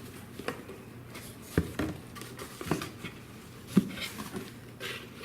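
Handling noise from the rain collector's parts: irregular light clicks and knocks as pieces are picked up and set down, the loudest about four seconds in.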